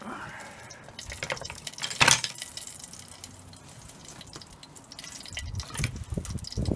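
Wood fire crackling and popping in a small twig stove, with a sharper pop about two seconds in and a few low thumps near the end.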